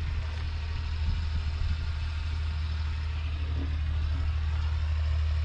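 A John Deere 3050 tractor's 5.9-litre six-cylinder diesel engine idling with a steady low hum.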